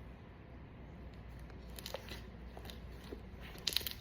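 Slime being handled, giving faint soft clicks and crackles, with a quick run of crackles near the end.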